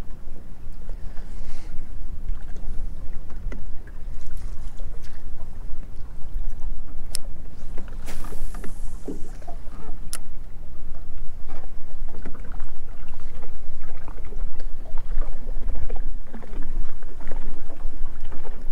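Wind buffeting the microphone over choppy water lapping against a small jon boat's hull, a loud rumbling that rises and falls, with two sharp clicks a few seconds apart.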